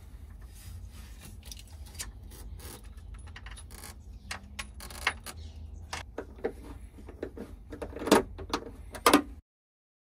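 Scattered clicks, taps and light rattles of a mounting bracket being handled and tried against a car's bulkhead, over a low steady rumble. There are a few louder knocks near the end, then the sound cuts out suddenly.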